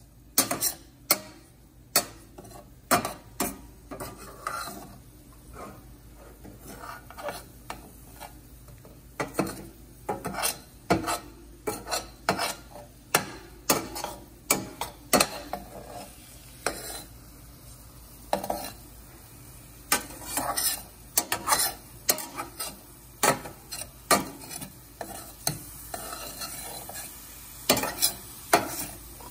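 A spatula scraping and knocking against a stainless-steel frying pan as diced chicken, onion and vegetables are stir-fried, in irregular clusters of sharp clacks. The food sizzles quietly underneath.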